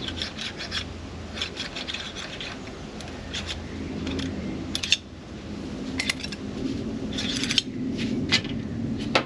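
Brake pipe being pulled through a hand pipe-straightening tool set to 5 mm: repeated short bursts of metal rubbing and scraping as the pipe is drawn through the tool.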